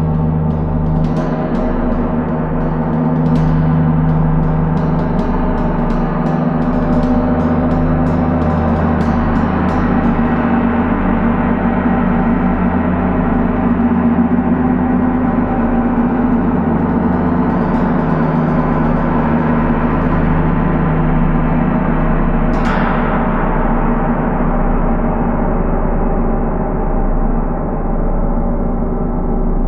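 A gong played with a run of light strikes, about two a second, over the first ten seconds, building a dense wash of sustained ringing tones. One sharper strike comes about three-quarters of the way through, and the ringing carries on under it.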